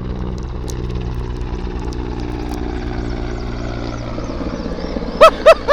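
Mil Mi-8 military helicopter flying low overhead: the steady, rapid beat of its rotor under engine whine, the pitch sinking slightly as it passes. Near the end a man's voice breaks in with a few loud bursts.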